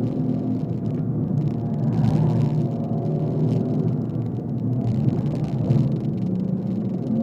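BMW 135i's turbocharged straight-six running at speed, heard from inside the cabin over road noise, its pitch and loudness briefly rising about two seconds in.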